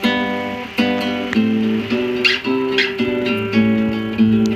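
Nylon-string classical guitar plucked by hand, one chord after another with notes ringing on between strokes.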